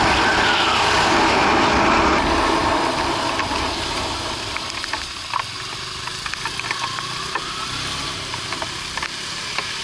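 Ride sound of a Yamaha Byson 150's single-cylinder engine with wind rush at speed, loud at first, then dropping after about three seconds to a quieter engine running at low speed with scattered ticks.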